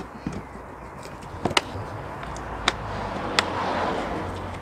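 Air filter housing clips being snapped shut on a BMW M57 diesel's air box: four sharp clicks, two in quick succession about a second and a half in, then two more about a second apart.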